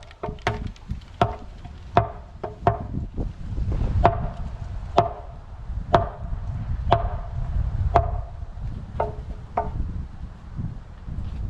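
A hammer striking a concrete catch basin wall about once a second, each blow ringing briefly, to knock out a circle of drilled holes and open a hole for the pipe. A low rumble runs under the blows.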